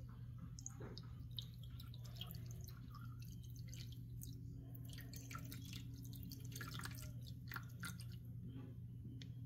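Thin stream of water pouring from a glass carafe into the top fill grate of a BUNN coffee maker's reservoir, a faint, irregular trickle with small drips and splashes, over a steady low hum.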